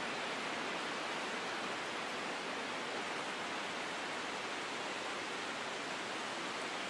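Steady, even hiss with no tune, beat or voice in it.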